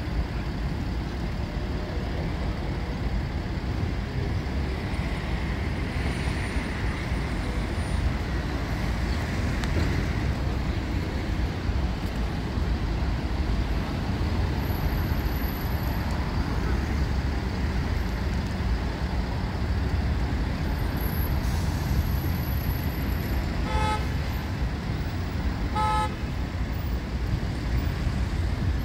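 Steady low rumble of city traffic, with two short car-horn toots about two seconds apart near the end.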